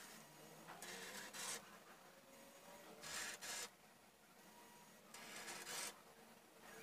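Small electric drive motors of a Cubelets-and-LEGO robot whirring in three short bursts about two seconds apart as the robot shifts along its track.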